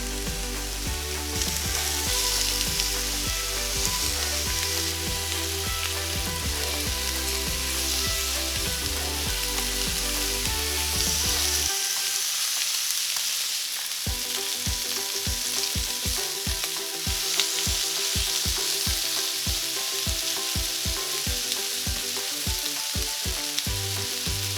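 Pork belly pieces sizzling in a dry frying pan over high heat, with background music throughout; the music's bass drops out about halfway through, then comes back as a steady pulsing beat.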